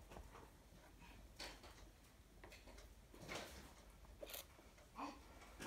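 Near silence with a few faint, brief taps and rustles: Cheerios being picked up and set down by hand on a paper sheet on a table.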